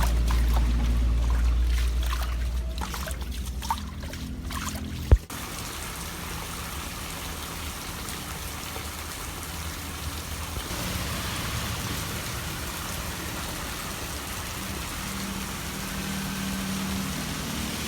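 Rain and flowing floodwater, a steady even rushing hiss. For the first five seconds a low rumble runs underneath, and it cuts off abruptly about five seconds in.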